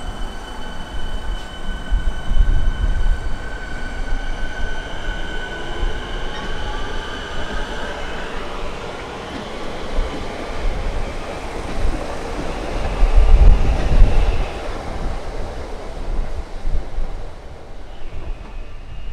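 Siemens Nexas electric multiple unit pulling away from the platform: a steady traction-motor whine that rises in pitch as it gathers speed, over the rumble of wheels on rail. Near the end a fainter whine comes in from the next train approaching.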